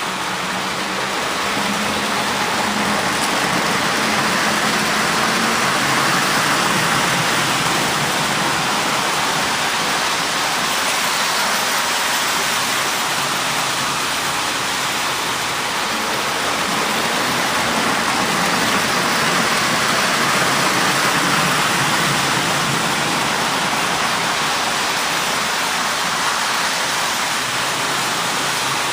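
Lionel O-gauge model trains running on three-rail track: a steady, even noise of wheels rolling on the rails and small electric motors.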